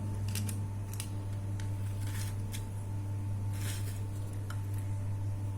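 Steady low electrical hum under a scattering of short, light clicks and rustles, the sound of small plastic parts and packaging being handled during unboxing.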